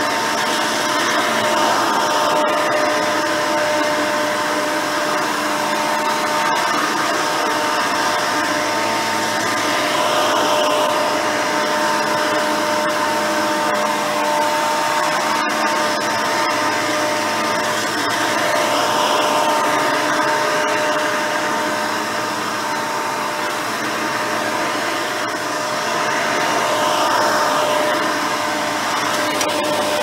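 Hoover Elite 350 upright vacuum cleaner running on carpet: its 5-amp motor and 7-blade fan give a steady whine with two held tones, and the dual-row brush roll beats the pile. The sound swells gently every several seconds as the machine is pushed back and forth.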